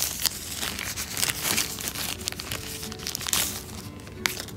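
Crinkling and rustling of the white packaging wrapper as a soft TPU phone case is handled and pulled out of it.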